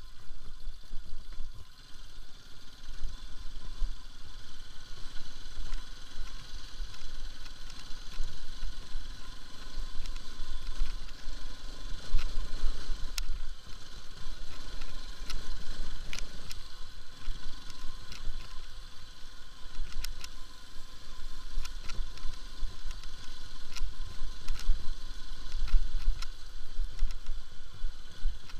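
Bajaj Pulsar RS200 motorcycle riding over a rough dirt track: its single-cylinder engine running under a fluctuating wind rumble on the microphone, with scattered clicks and knocks as the bike jolts over bumps.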